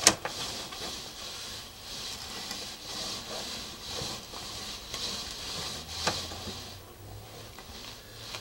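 Sewer inspection camera's push cable being fed into a 3-inch ABS drain line: a steady rustling hiss, with a sharp click at the start and another about six seconds in.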